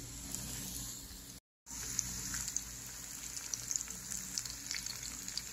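Breaded banana lollipops deep-frying in hot sunflower oil: a steady sizzle with scattered small crackles. The sound cuts out for a moment about a second and a half in.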